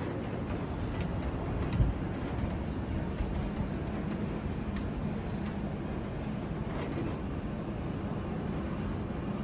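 Steady low machinery rumble and hiss, with a few faint clicks.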